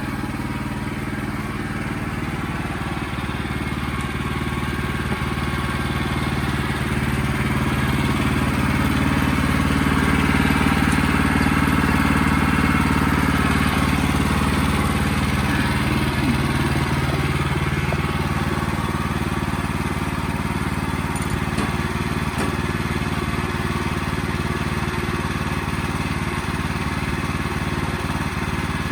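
Wood-Mizer portable band sawmill running steadily, growing louder and harsher through the middle before settling back.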